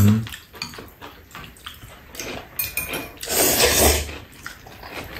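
Noodles of white jajangmyeon being slurped up for about a second, a little past the middle. Before it come light taps of chopsticks against the bowls.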